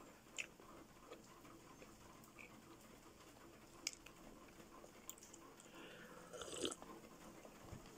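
Very quiet sipping from a coffee mug, with a few small mouth and spoon clicks and a louder sip about six and a half seconds in.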